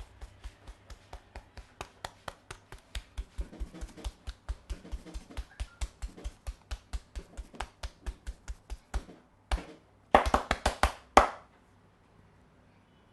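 Percussive head massage: hands tapping rhythmically on the head, about four or five sharp pats a second, growing louder. After a brief pause it ends in a short, louder, faster flurry of slaps that stops abruptly.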